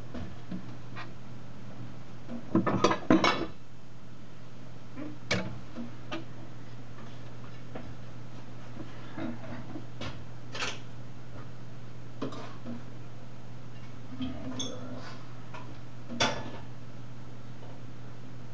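Scattered clinks and clatters of dishes and kitchen utensils being handled, the loudest cluster about three seconds in, over a steady low hum.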